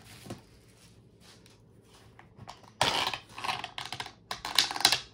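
Takeout food packaging being handled and opened, crackling and crinkling in three short bursts over the last two seconds or so.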